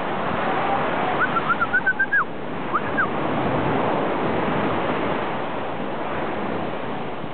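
Steady wash of ocean surf on a beach. About a second in comes a quick run of short, high chirps, with two more a little later.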